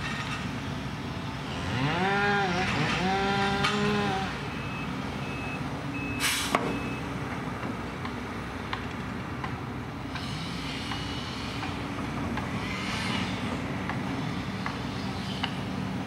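Sumitomo SH240 log loader's diesel engine running steadily, rising in pitch with a whine about two seconds in and holding there for a couple of seconds as the loaded grapple is worked. A single sharp loud crack about six seconds in as logs are set down on the truck's load, with a few faint short beeps around it.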